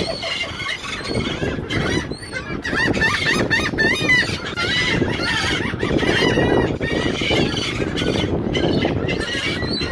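A flock of laughing gulls calling over one another in a dense, continuous chorus of short squawking calls, over a steady low rumble.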